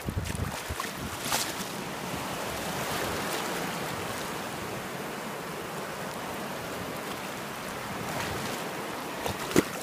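Shallow surf washing and fizzing over wet sand in a steady hiss that swells and eases, with a short click about a second and a half in and a sharp knock near the end.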